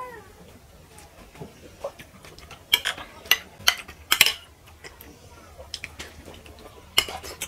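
Metal spoons scraping and clinking against plates of khichuri as two people eat. The clinks are sharp and separate, with a cluster of several about three to four seconds in and another pair near the end.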